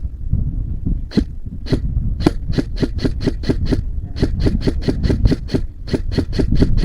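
Airsoft gun firing a rapid series of single shots, a few slow at first and then about five or six a second, in three strings with short pauses between them, over a low rumble of wind on the microphone.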